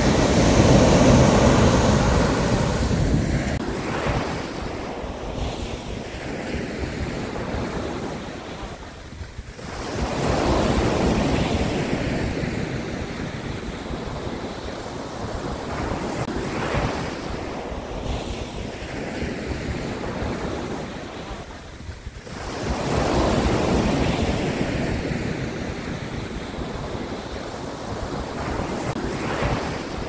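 Sea waves breaking on a sandy beach, the surf swelling and fading in slow surges several seconds apart, with wind buffeting the microphone.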